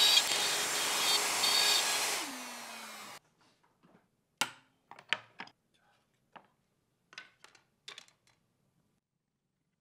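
Bosch plunge router cutting plywood, then switched off about two seconds in, its motor winding down with a falling pitch before the sound cuts off. After that come several light wooden clacks as thin plywood strips and pieces are set down on the bench.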